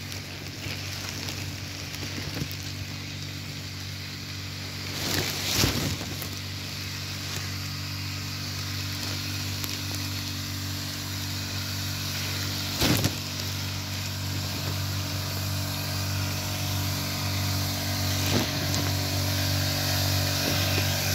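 Small engine of a power crop sprayer running steadily, driving the spray pump, with the hiss of spray mist from the lance. Twice a brief, louder burst of noise cuts through.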